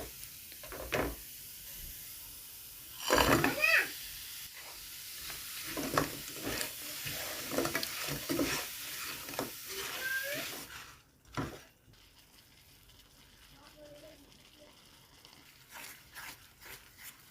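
Food sizzling in a hot pan: a steady hiss that cuts off about eleven seconds in, followed by a single knock.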